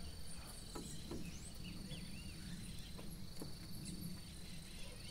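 Faint outdoor insect trill, steady and high, with short chirping calls and a few light knocks on wood as a man moves across roof rafters.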